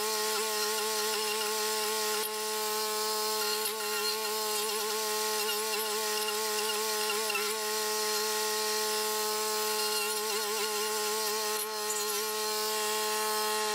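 Toro rental stump grinder's small gas engine running at a high, steady speed, a constant buzzing whine with a few faint knocks, while its toothed cutting wheel grinds the stump down into the soil.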